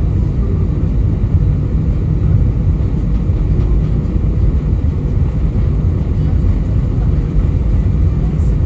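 Steady low rumble inside the cabin of an Airbus A320 taxiing to the runway.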